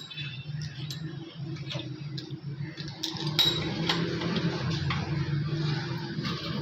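Irregular metallic ticks and clinks of small metal parts and tools being handled during diesel injection pump repair, over a steady low hum.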